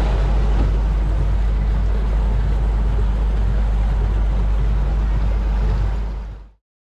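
Bay boat running at speed on its 250 hp outboard motor: steady motor noise, rushing wake water and wind on the microphone. It fades out about six seconds in.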